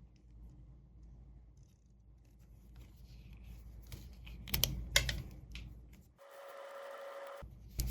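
Bench-work handling sounds: light scraping and rubbing, then a few sharp clicks about four and a half to five seconds in, over a steady low hum.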